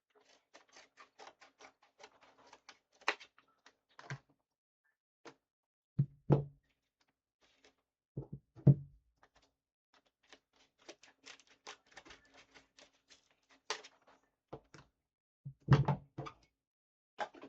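Scissors snipping and stiff plastic blister packaging crackling as a trading-card blister pack is cut open, with three heavier knocks.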